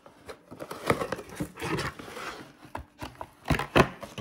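Cardboard packaging rustling and scraping as a glass pan lid is handled in its cardboard sheet, with scattered sharp knocks, the loudest a pair about three and a half seconds in.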